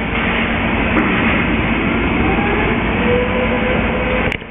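Steady clanking machinery noise of container gantry cranes working a ship, with a drawn-out whine rising in pitch through the middle and two sharp metallic clicks, one about a second in and one near the end, where the noise briefly drops away.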